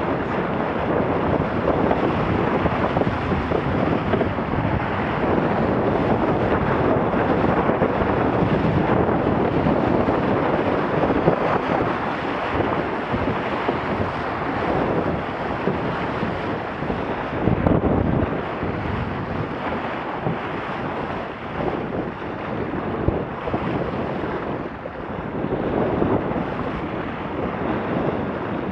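Wind buffeting the action camera's microphone over the rush and splash of water along a Laser dinghy's hull as it sails fast and planes at around 7 to 10 knots. A steady, loud rushing that rises and falls a little with gusts and waves.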